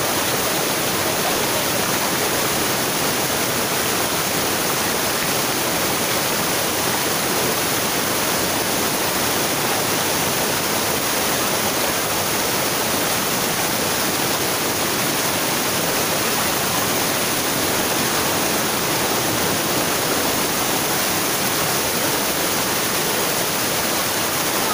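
Small waterfall cascading over rocks into a pool: a steady, even rush of falling water, close and loud.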